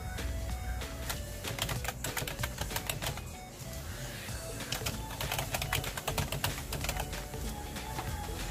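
Computer keyboard keys clicking as someone types in two quick runs with a short pause around the middle, testing a PC whose typed text lags on screen. Light background music plays under the typing.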